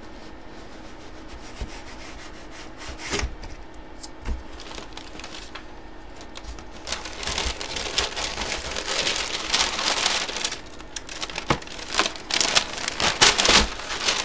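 Brown kraft packing paper crinkling and rustling as hands pull it out of an opened cardboard box, beginning about halfway in and growing busier toward the end. A couple of knocks from handling the box come earlier.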